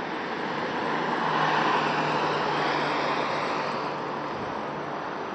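A car driving past, its road and engine noise swelling to a peak about a second and a half in, then fading away.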